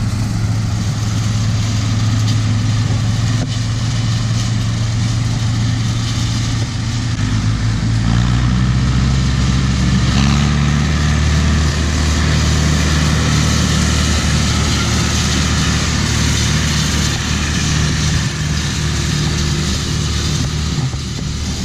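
Tractor engine running steadily under load while driving a John Deere round baler, the engine note shifting about seven seconds in.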